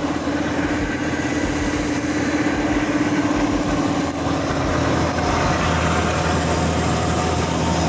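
Coir mill machinery running steadily: the coconut-husk fibre-extracting drum and separator turning under motor power, a constant machine hum and rumble.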